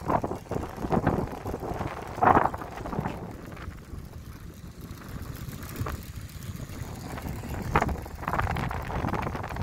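Wind buffeting the microphone of a camera riding on a moving bicycle: a steady low rumble that swells in gusts, loudest about two seconds in and again near the end.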